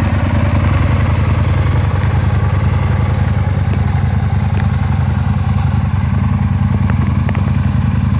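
Aprilia Tuono 1000R's 998 cc V-twin engine idling steadily with an even low pulsing beat.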